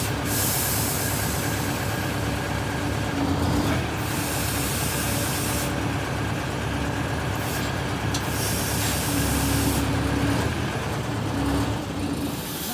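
The 1968 MCI 5A bus's Detroit Diesel 8V71 two-stroke V8 diesel running steadily, with a high rush of air hiss that comes and goes several times.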